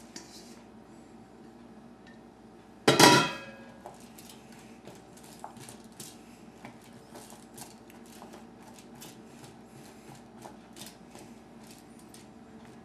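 A stainless steel mixing bowl is set down with one loud ringing clang about three seconds in. After it come many light clicks and scrapes as a spoon spreads chopped vegetables across a foil-lined metal baking sheet.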